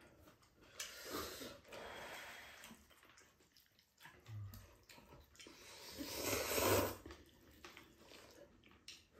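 Jjamppong ramen noodles being slurped in two long slurps, the louder one about six seconds in.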